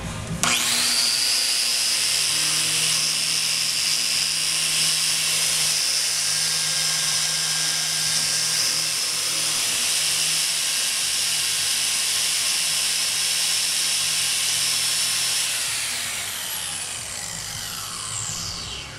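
Milwaukee 4-1/2-inch angle grinder switched on, spinning up within half a second to a steady high whine and running free with nothing against the wheel. Near the end it is switched off and winds down with a falling whine.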